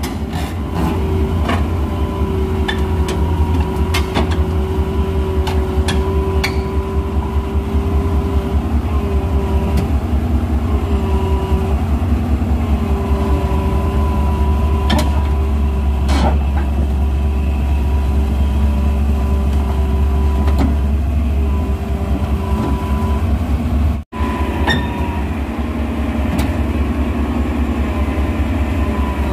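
Hitachi EX220LC excavator's diesel engine running hard with a deep throb while the machine tracks up steel ramps onto a lowbed trailer, a steady whine riding over it that breaks off now and then. Sharp metallic clanks come at irregular intervals as the steel tracks strike the ramps and trailer deck.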